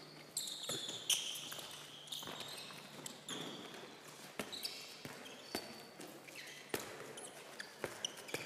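Handballs bouncing and players' shoes knocking and squeaking on a sports-hall floor: irregular sharp thuds with short high squeaks in between.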